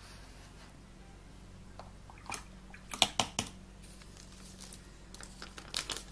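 Small objects handled on a tabletop: a few sharp clicks and taps, loudest in a quick cluster about three seconds in, with more light ticks near the end.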